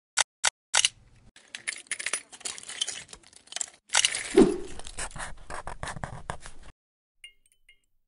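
Plastic LEGO bricks clicking and clattering in quick, irregular runs, with a single dull thud about four and a half seconds in. The clatter stops shortly before the end, leaving a few faint high ticks.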